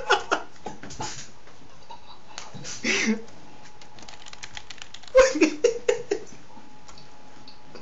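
Rapid light clicking like keyboard typing, broken by a short muffled laugh about three seconds in and a burst of stifled laughter and giggling around five to six seconds in. Near the end a faint steady tone comes in.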